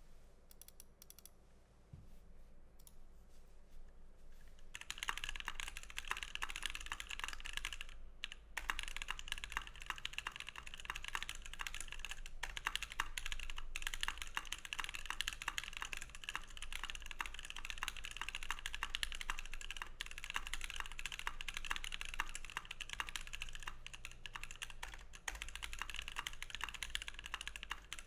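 Fast typing on a Savage65 mechanical keyboard with an FR4 plate, NovelKey Cream linear switches lubed with Tribosys 3204, and EnjoyPBT Sushi PBT keycaps: a dense run of key clacks. The keystrokes are light and sparse at first, turn into steady dense typing from about five seconds in, and break off briefly near eight seconds.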